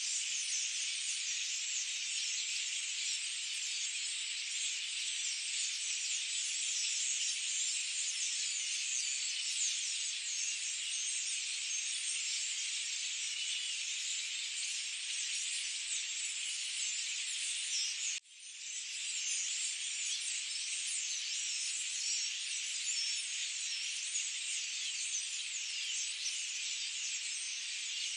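Forest ambience: a dense, steady, high-pitched chorus with nothing low in it. About two-thirds of the way through it drops out for a moment and fades back in.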